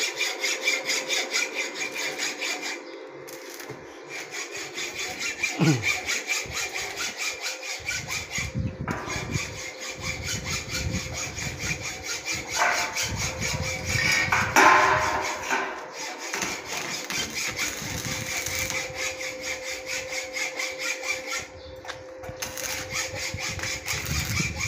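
Stick (shielded metal arc) welding on the joints of a steel-tube gate: a continuous crackling arc that stops briefly about three times and then strikes up again.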